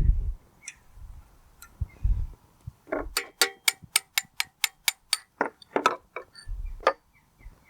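Ratchet spanner clicking in a fast, even run of sharp metallic ticks as a nut is wound off, then a few scattered clicks, after a few dull knocks at the start.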